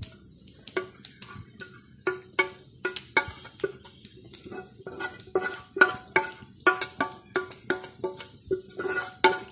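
Stainless-steel pot knocked repeatedly against a steel bowl to shake out scalded rice-flour dough, about two to three metallic knocks a second, each ringing briefly.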